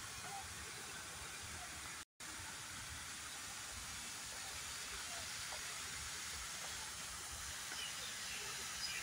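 Small garden waterfall giving a steady hiss of falling water, broken by a brief dropout in the recording about two seconds in.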